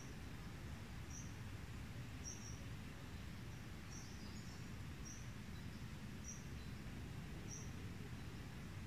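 Faint outdoor ambience: a steady low rumble with a short high chirp repeating about once every second.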